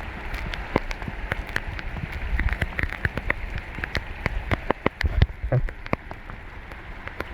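Torrential rain coming down hard: a steady hiss of rainfall with many large drops hitting close by as sharp individual splats, and a few low thumps.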